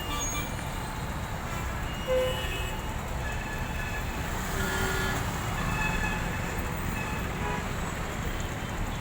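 Heavy road traffic: a steady rumble of engines and tyres, with short horn toots here and there throughout.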